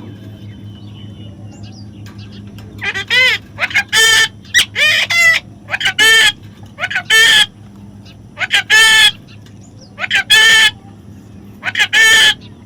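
A parrot giving a series of short, loud, harsh squawks, about a dozen calls starting about three seconds in, often in quick pairs, over a steady low hum.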